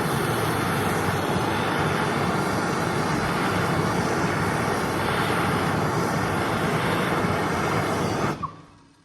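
MAP gas blowtorch flame burning with a steady, loud roar, then cut off about eight seconds in.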